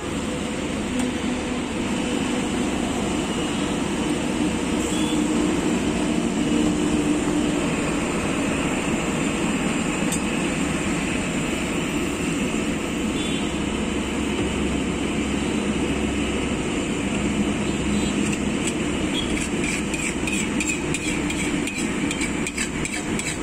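Oil sizzling steadily in a large pool on a wide flat iron griddle (tawa). Near the end a metal spatula scrapes and clicks against the griddle.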